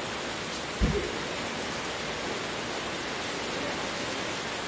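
Steady hiss of heavy rain, with one short, deep thump about a second in.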